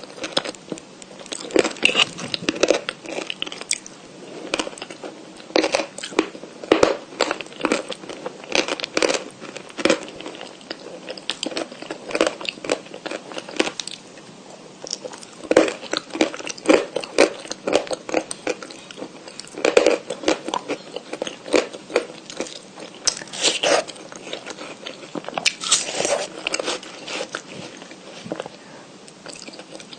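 A person biting and chewing white chalk: a run of irregular crisp crunches and crumbling cracks, with short pauses between bites.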